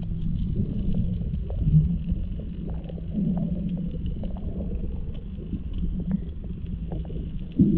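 Muffled underwater rumble picked up by a submerged action camera, with a steady low hum, scattered faint clicks, and a sudden louder burst of noise right at the end.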